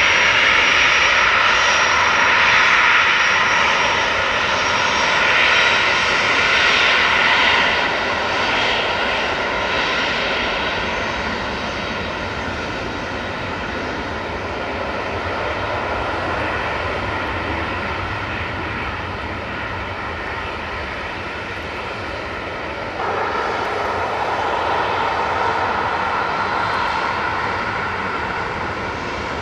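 Boeing 737-500 jet engines (CFM56 turbofans) running steadily, an even noise with faint whining tones. About 23 s in, the sound abruptly grows louder and fuller.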